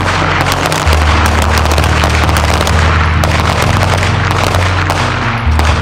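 Several pistols fired at once along a firing line: a dense, irregular crackle of overlapping shots, under background music with a steady low bass.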